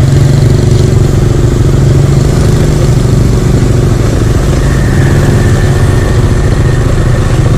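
Motorcycle engine running steadily while being ridden, heard from the rider's seat, with no revving up or down.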